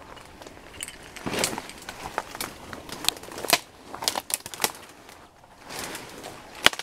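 Leaves rustling and twigs snapping as someone pushes through dense undergrowth on foot, in irregular crackles and snaps, the sharpest one just before the end.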